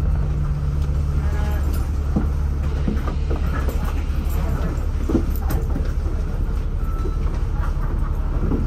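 Steady low drone of a city bus's engine and running gear, heard from inside the passenger cabin, with a few light knocks and rattles.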